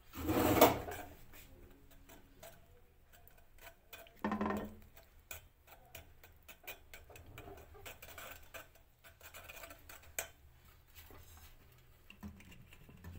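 Steel spoon stirring and scraping wet ash gourd pulp in a stainless steel mesh strainer, giving faint irregular clicks and scrapes as the juice is worked through the mesh.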